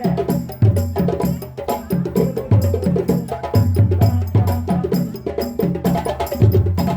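West African drum ensemble of djembes and drums playing a fast, dense rhythm of sharp hand or stick strokes, with deep low booms about once a second.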